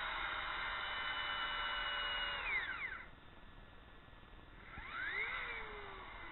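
Electric drill with a long bit boring centre holes into sawn wooden discs: the motor runs steadily for about two and a half seconds, winds down, then spins up again about five seconds in and slows.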